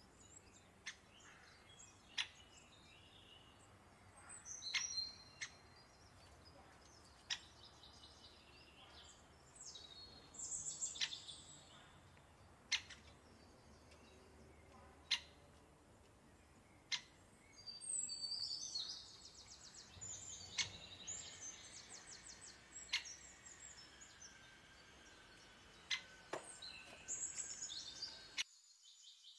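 Birds chirping and trilling in the background, with scattered sharp clinks of a metal spoon and knife against the clay tagine dish.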